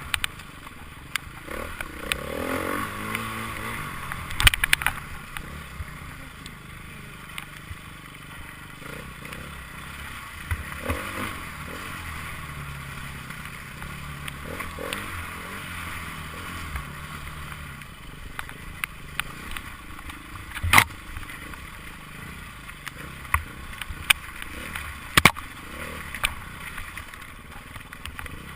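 Enduro motorcycle engines running and revving, with a brief rising rev early on. A few sharp knocks stand out, the loudest about two-thirds of the way through.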